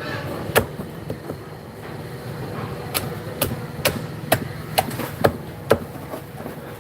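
Sharp chopping knocks: one about half a second in, then a run of about two a second from about three seconds in. A steady low hum lies beneath them.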